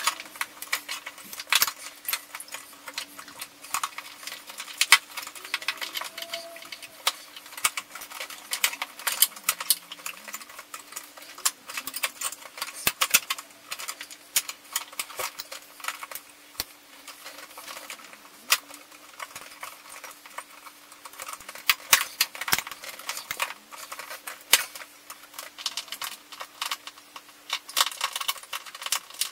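Irregular clicks, taps and light metallic clinking from hands fitting a new defrost heater element into a Samsung fridge-freezer's evaporator, bending its soft aluminium retaining plates back over the element.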